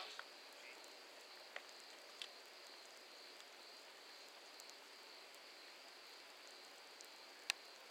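Near silence: faint ambient noise on a railway platform at night, a steady high hiss with a few faint clicks and one sharper click near the end.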